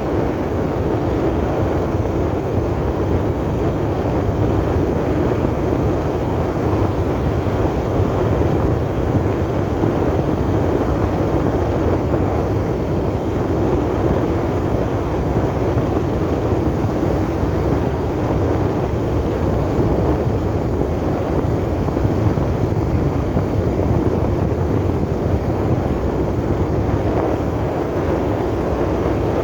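Steady running noise of a moving road vehicle, engine and road rumble heard from on board, with no distinct events.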